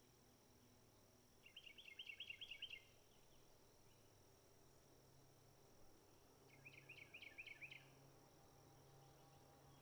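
A small bird singing two short, rapid trills of repeated high notes, each about a second long and some five seconds apart, over a faint steady high-pitched insect hum.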